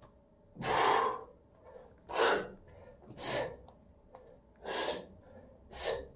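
A man's forceful, noisy breaths of exertion, five in about six seconds, each about half a second long, in time with suspension-trainer pike reps.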